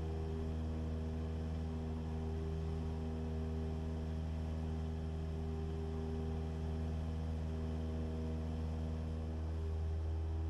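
Cessna 172's engine and propeller droning steadily at climb power: an even low hum with a few steady tones above it.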